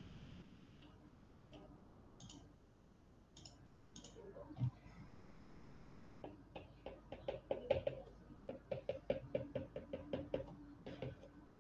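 Faint, sharp taps and clicks of a stylus on a pen tablet while handwriting is written: a few scattered clicks, a single louder knock a little before halfway, then a quick run of taps at about four or five a second that stops shortly before the end.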